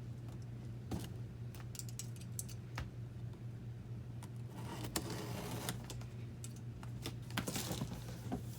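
Scattered clicks, taps and short scrapes as a tightly sealed cardboard shipping box is worked at to get it open, over a steady low hum.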